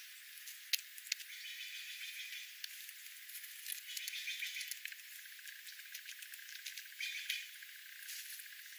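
Small wild birds chirping in quick, chattering bursts, with a few sharp clicks in between.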